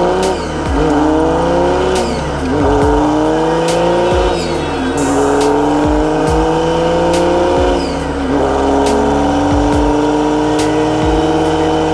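Dump truck's diesel engine accelerating through the gears: its pitch climbs steadily, then drops at each upshift, three times, the last gear held long. Music plays underneath.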